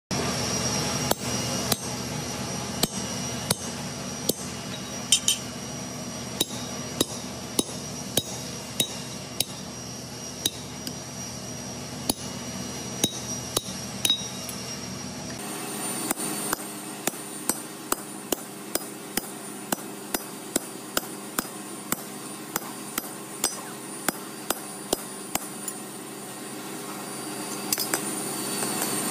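Hand hammer striking iron on an anvil in forging, a little over one blow a second, each blow with a short metallic ring. A steady low hum runs under the blows, and the background changes about halfway through.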